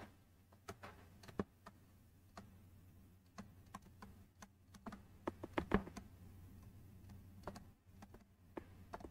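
Faint, irregular taps and clicks of a stylus on a pen tablet during handwriting, busiest about halfway through, over a faint low steady hum.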